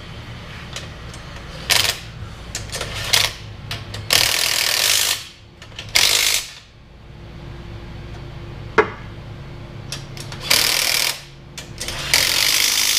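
Cordless impact wrench running down the bearing-cap bolts of a Chevy 8.6 differential, in a series of loud bursts from half a second to about a second long. There is a single sharp metallic knock about nine seconds in.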